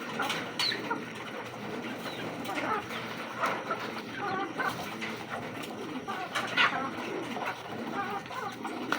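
Racing pigeons cooing in their loft, many birds calling over one another, with a few short sharp clatters among them.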